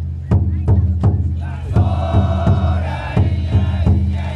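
Taikodai festival drum beaten in a steady beat of about three strikes a second over a steady low hum. A group of men's voices joins in chanting about a second and a half in.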